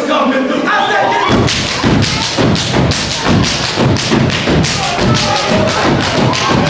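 Steppers stomping in unison on a stage floor: a fast rhythm of heavy, synchronized thumps that starts about a second in. Voices are heard over the opening second.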